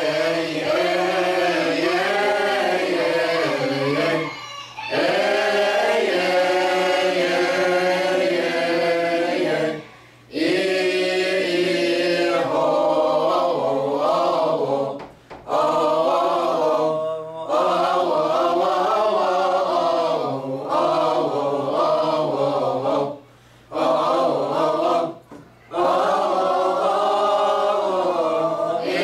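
Mixed group of men and women chanting a Coptic church hymn together, unaccompanied, in long sustained phrases separated by short breath pauses.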